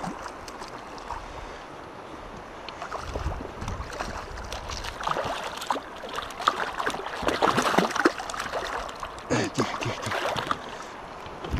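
A hooked grayling splashing and thrashing in the water at the side of an inflatable boat while it is grabbed by hand, over the steady rush of the river. The splashes grow thick and sharp from about five seconds in.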